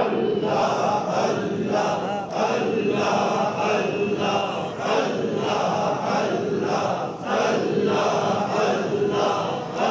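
A group of men chanting a devotional recitation together, many voices in unison with a steady rhythm about once a second.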